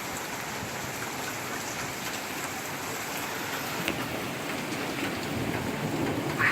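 Heavy rain pouring down steadily in a thunderstorm, with a single sharp tick about four seconds in and a brief swell in loudness at the very end.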